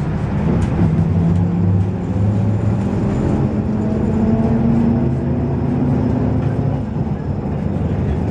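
Interior sound of a MAZ 103 city bus with a manual gearbox driving along: a steady engine drone with road noise, its pitch rising about halfway through as the bus picks up speed.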